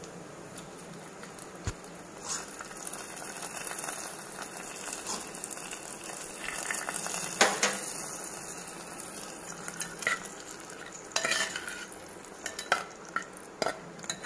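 Hot oil tempering of mustard seeds, dried red chillies and curry leaves sizzling as it is spooned into an earthenware pot of coconut raw mango curry. A steel spoon stirs it in and clinks against the pot several times in the second half.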